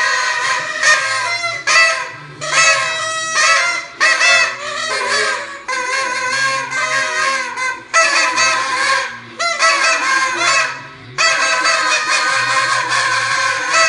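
Several plastic New Year's party horns blown again and again, their honking blasts overlapping at different pitches, with short breaks between bursts.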